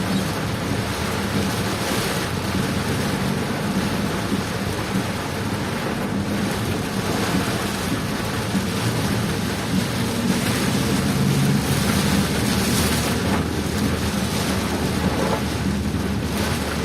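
Heavy rain falling steadily, with a low steady rumble of a vehicle running underneath.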